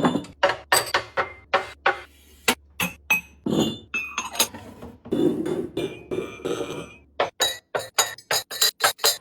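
Hard kitchen containers being set down and clinking against one another in a quick series of knocks, several with a short bright ring.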